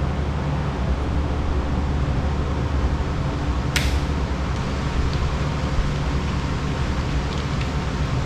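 A steady low rumbling hum in the background. A single sharp snip comes near the middle, typical of wire being cut with snips.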